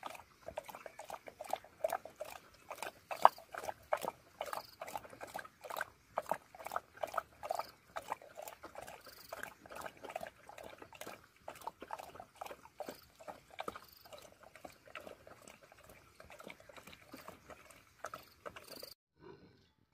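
A Tibetan mastiff lapping and slurping a milky liquid from a plastic bowl: quick wet laps and splashes, about three a second, that stop near the end.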